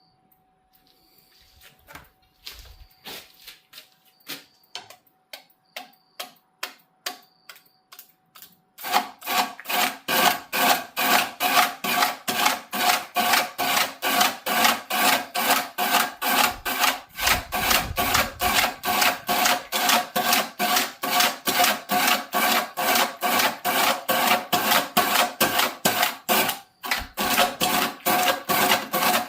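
A hand tool worked back and forth on wood in even strokes, like hand sawing or rasping. The strokes are faint and spaced at first, then from about a third of the way in they turn loud and regular, about two to three strokes a second.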